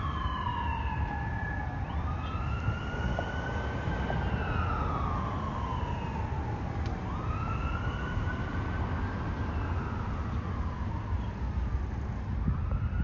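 Emergency vehicle siren sounding a slow wail, its pitch climbing and falling about once every four to five seconds, over a low engine and traffic rumble.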